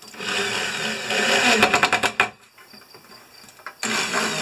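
Small no-name electric drill used as a screwdriver, driving screws through aluminium angle into plywood: the motor whines for about two seconds and ends in a quick series of clicks, then after a short pause starts again near the end.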